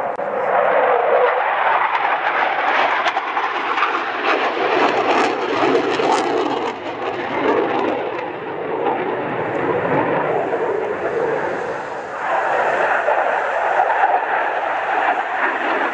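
Jet noise from an F/A-18 Hornet's twin turbofans in a low display pass: a loud rushing roar whose pitch shifts as the jet moves, easing a little about twelve seconds in and then building again.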